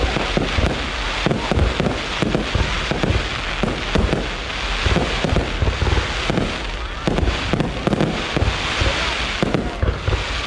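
Fireworks display going off in quick succession: a dense, unbroken run of bangs and crackling.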